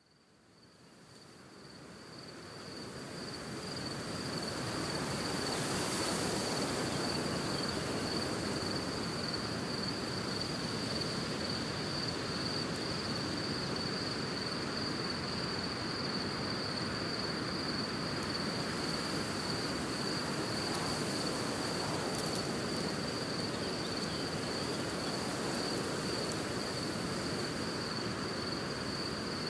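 Nature ambience: a steady chorus of insects, most likely crickets, trilling at one high pitch, over a constant rush of wind. It fades in over the first few seconds, then holds level.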